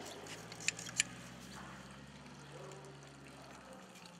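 A metal hand tool clicks twice against copper and brass pipe fittings about a second in. Under it runs a faint trickle of water and a low steady hum that fades near the end.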